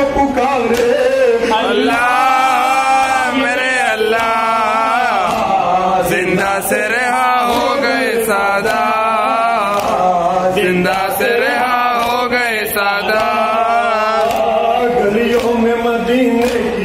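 A man chanting a Shia noha (lament) into a microphone, his voice amplified, with sharp slaps about once a second that fit mourners beating their chests in time (matam).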